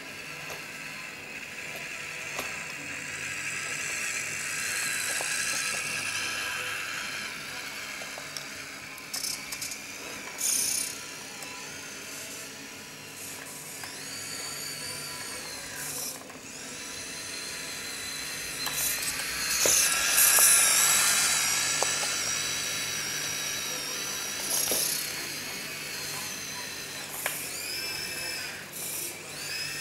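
Radio-controlled Siku Control Steyr CVT 6230 model tractor's small electric drive motor and gears whirring as it drives, with the whine rising and falling in pitch as it speeds up and slows, loudest about two-thirds of the way through.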